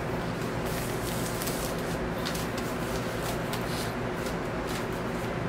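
Plastic shrink-wrap crinkling as it is torn and peeled off a vinyl LP's cardboard sleeve, in quick irregular rustles, over a steady low background hum.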